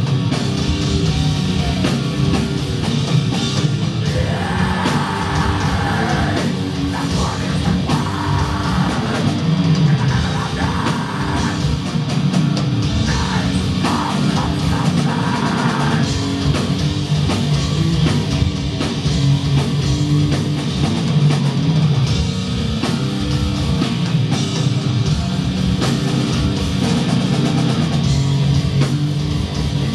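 Black metal band playing live: distorted electric guitars and drums, with harsh vocals through the middle part, loud and dense, heard from within the crowd.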